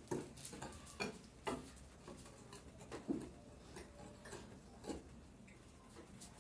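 Wire balloon whisk stirring a dry flour mix in a glass bowl: faint, irregular clicks as the wires tap the glass, about one or two a second.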